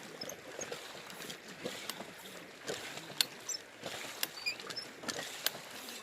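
Water sloshing and splashing in shallow river water, with irregular sharp clicks and knocks of stones as riverbed gravel is worked for gold.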